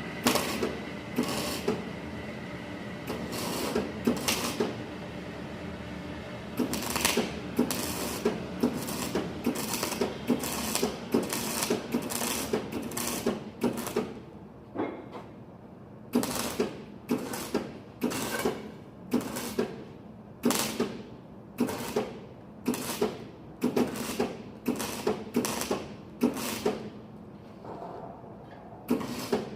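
Repeated creaking, scraping strokes of hand-tool work, coming about one or two a second, with a short pause about halfway through.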